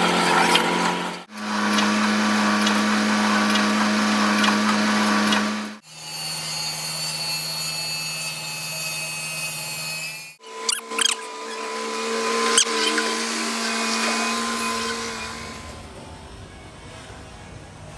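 Electric power tools running with a steady hum and hiss, in short clips that change abruptly about every four to five seconds, each clip at a different pitch. A few sharp clicks come about halfway through, and the last couple of seconds are a quieter steady hiss.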